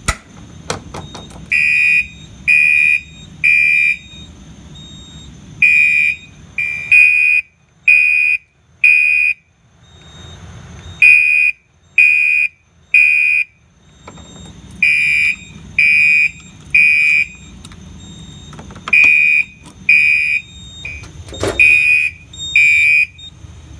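Gentex SHG-2415WR fire alarm horn strobe sounding in code 3 (temporal-3): loud, high-pitched horn blasts, mostly in groups of three with a pause between groups, repeating. The horn does its own coding while the panel puts out a continuous signal.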